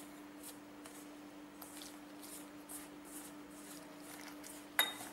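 A hand rubbing dry rice flour and salt together in a stainless-steel bowl: faint, soft scratchy swishes repeating about every half second. A brief sharp sound comes near the end.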